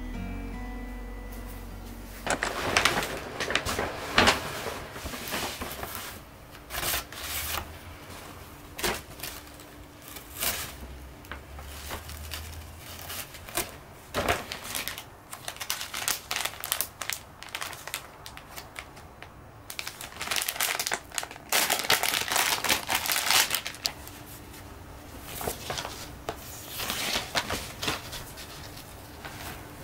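A brown paper shopping bag crinkles and rustles in irregular bursts as a soft top is pulled out of it, with quieter gaps between handlings.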